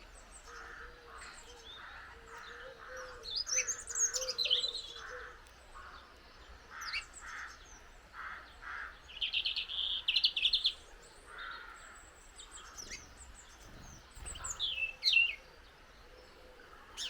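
Small garden birds at a feeder chirping and twittering, many short calls and quick sweeping notes, with a fast rattling trill about ten seconds in.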